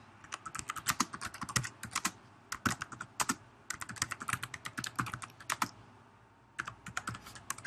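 Typing on a computer keyboard: quick runs of key clicks, a short pause about three-quarters of the way through, then typing again.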